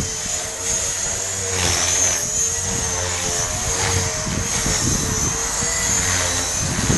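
Blade 450X electric RC helicopter in flight: a steady high-pitched whine from its brushless motor and drive gears over the buzz of the spinning rotor, the pitch wavering slightly as it manoeuvres. A rushing sound swells and fades twice.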